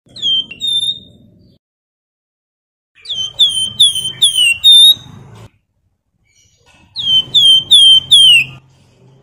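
Javan fulvetta (wergan Jawa) singing flute-like whistled phrases of quick, downslurred notes. It gives a short two-note phrase at the start, a run of about six notes some three seconds in, and four notes near the end, with silence between.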